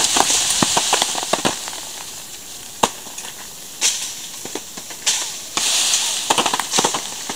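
Ripe apricots dropping onto a plastic ground tarp: a quick flurry of sharp hits in the first second and a half, then scattered single hits and another cluster near the end. Leaves rustle over them at the start and again near the end.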